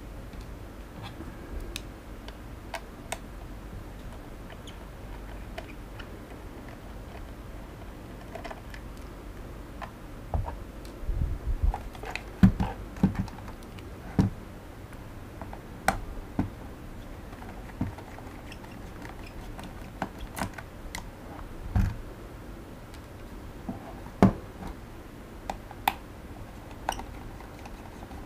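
Small screwdriver working on the screws of a Xiaomi Mi Drone 4K remote controller's plastic casing: scattered light clicks and taps of tool and plastic. The clicks come thicker about a third of the way in and again after the middle.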